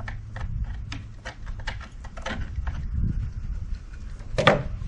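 A run of irregular, sharp knocks and clicks, about two or three a second, with a louder knock near the end, over a steady low rumble.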